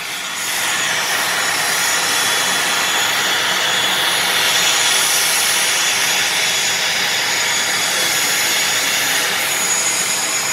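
LIAT turboprop airliner's engines running as it taxis: a steady rushing whine with faint high steady tones, growing louder about half a second in and then holding level.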